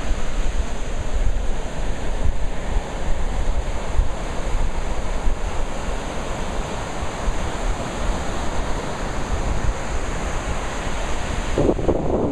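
Surf washing onto a sandy beach, a steady wash of breaking waves, with wind buffeting the microphone as a low rumble.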